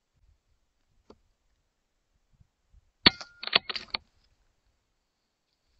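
A single shot from a .22 PCP air rifle: one sharp crack about three seconds in, followed by about a second of rapid clicks and knocks. A faint click comes about a second in.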